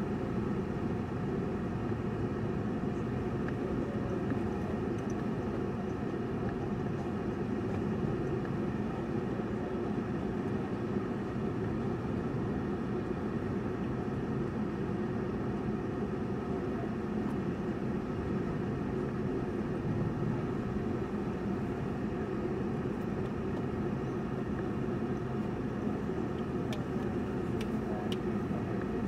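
Steady car engine and road noise, heard from inside the cabin while driving.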